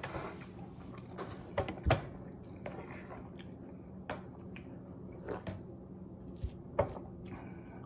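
Close-up eating and drinking sounds: a person chewing food with scattered small mouth clicks, then sipping coffee from a mug, over a low steady room hum.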